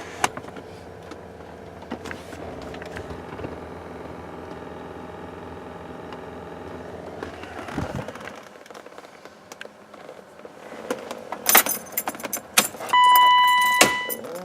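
Interior blower fan of a 1992 BMW 735iL running with a steady hum and light ticking, the fan noise that appeared after a cabin filter change; about eight seconds in it winds down in pitch and stops. Then come clicks and a jangle of keys, and near the end a steady electronic warning chime sounds for about a second.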